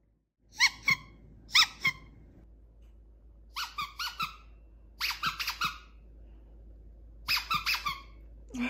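A squeaky toy ball squeaking in quick runs: two pairs of squeaks in the first two seconds, then three runs of three or four squeaks spaced a little over a second apart.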